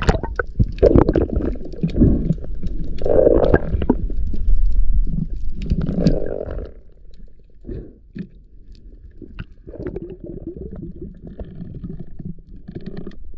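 Muffled underwater sound picked up by a camera in a waterproof housing: water rushing and bubbling as the diver goes under, with a low rumble. About seven seconds in it drops to quieter water noise with scattered small clicks.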